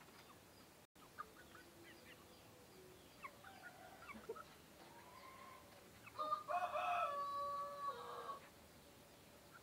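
Pejantan rooster (male of an egg-laying chicken breed) crowing once, a call of about two seconds a little past the middle. Before the crow come a few short clucks and chirps.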